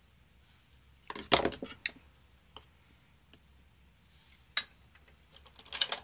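Small hard objects clicking and clattering: makeup brushes and product containers being handled, picked up and set down. There is a cluster of knocks about a second in, a few single clicks after it, and another quick cluster near the end.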